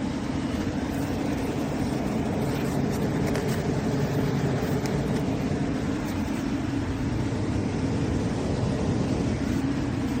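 Dreo 12,000 BTU portable air conditioner running, a steady hum and rush of its compressor and fan.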